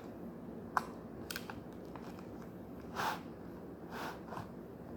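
Slime and play-doh being squished and kneaded by hand, giving a few short sticky crackles and squelches, one longer one about three seconds in.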